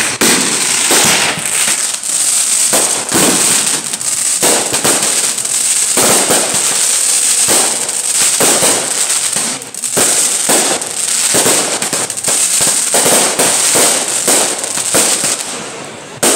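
Aerial fireworks launched from the ground, firing and bursting overhead in rapid succession: a continuous run of loud bangs and crackling, several a second, with hardly a break.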